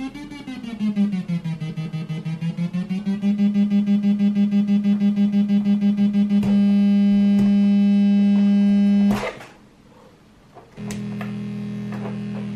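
Homemade 40106 Schmitt-trigger oscillator giving a buzzy square-wave drone around 200 Hz. Its pitch wobbles up and down, then it pulses about five times a second, then holds steady. It cuts out about nine seconds in, a few clicks follow, and the drone returns quieter.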